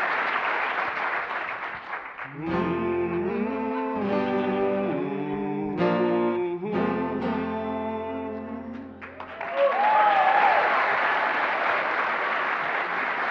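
Audience applause, then a steel-string acoustic guitar playing a few sustained closing chords, struck about two and a half and six seconds in. The applause returns, louder, as the guitar fades at about nine and a half seconds.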